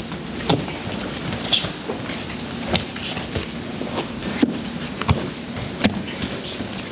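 Bare feet stepping and slapping on judo mats, with the rustle of heavy judo gis, as two judoka drill repeated turn-throw entries (moving uchikomi). Sharp slaps come at uneven intervals, roughly one or two a second.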